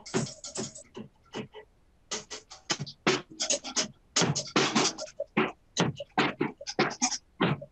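A person's voice in short, choppy bursts with no clear words.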